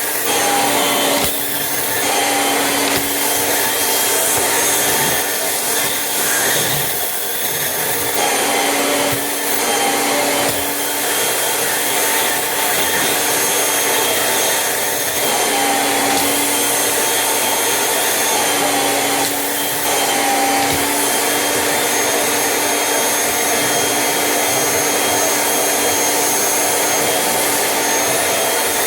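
Vacuum cleaner running continuously: a loud, steady rush of air with a constant motor whine layered on top, the tone wavering slightly now and then.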